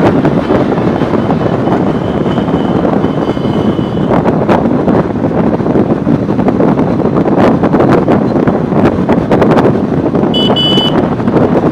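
Wind rushing and buffeting over the microphone of a camera on a moving motorbike, mixed with road and vehicle noise. A short high beep sounds twice, faintly about three seconds in and more clearly just after ten seconds.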